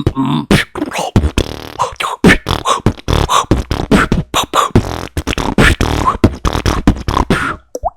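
Human beatboxing: a fast run of vocal kick, snare and hi-hat sounds mixed with pitched humming and bass tones, stopping briefly near the end.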